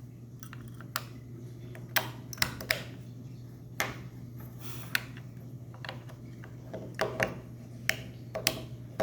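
Batteries being fitted one-handed into the plastic battery compartment of a smart lock: a dozen or so irregular sharp clicks and knocks, over a steady low hum.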